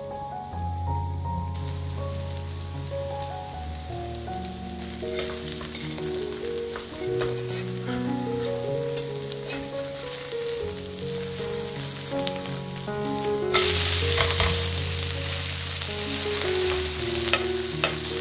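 Batter-coated julienned burdock root sizzling as it fries into a fritter in a non-stick pan, with a wooden spoon scraping and tapping on the pan. The sizzle flares louder for a few seconds past the middle, around when the fritter is turned over. Soft background keyboard music plays under it.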